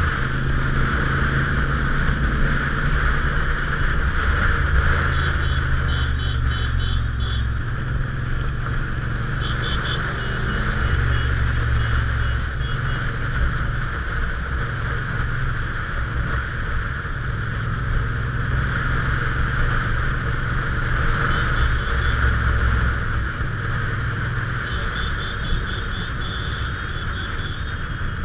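Motorcycle engine running steadily at cruising speed, heard from the rider's own bike, with a continuous rush of riding wind over it.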